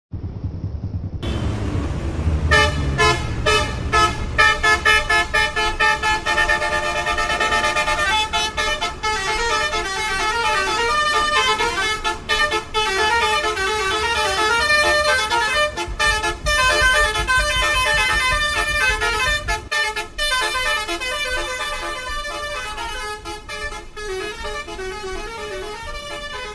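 Twelve-note telolet bus horn playing a melody, its trumpet-like tones switching pitch several times a second. A low engine rumble runs under it in the first few seconds.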